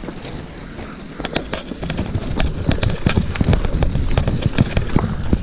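Mountain bike ridden fast down a rough trail: tyres rumbling over the ground and the bike clattering with many sharp knocks, louder from about a second in, with wind buffeting the microphone.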